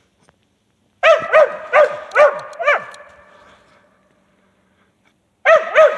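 A mountain cur mix dog barking treed at a raccoon up a tree. There is a quick run of five sharp barks, a gap of a couple of seconds, then another fast run of barks starting near the end.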